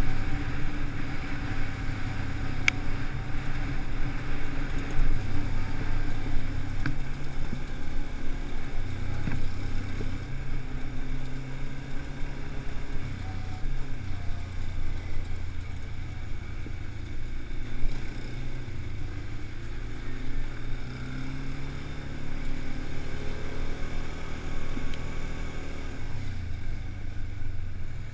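Quad bike (ATV) engine running under way on a dirt track, its note stepping up and down several times with throttle and gear changes.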